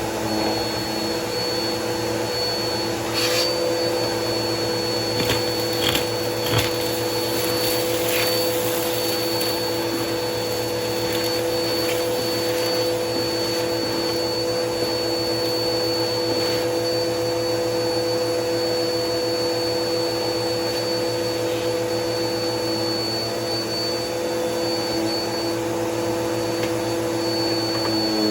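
Vacuum cleaner running steadily, with a constant motor hum and a high whine, as it sucks up crunchy debris from carpet. A few sharp crackles and clicks come in the first several seconds as bits are pulled into the nozzle.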